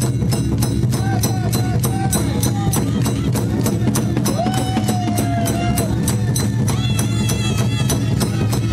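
Live Japanese festival band of the awa-odori kind playing drums and metal percussion in a fast, steady beat, with a pitched melody line weaving above it.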